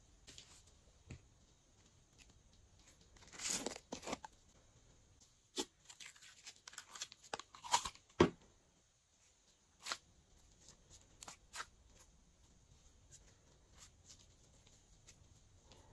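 Glossy slime being squished and stretched by hand, giving irregular sticky pops, clicks and small tearing snaps. They come in louder clusters a few seconds in and again around the middle, the loudest pop a little past halfway.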